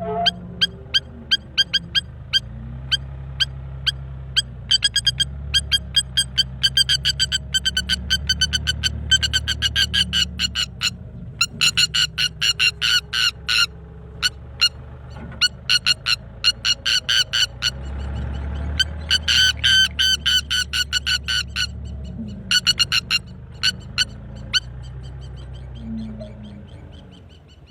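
A bird calling in rapid runs of short, sharp, high notes, several a second, in bursts with short pauses: the alarm calls of a parent bird defending its young. A low steady drone, likely background music, runs underneath.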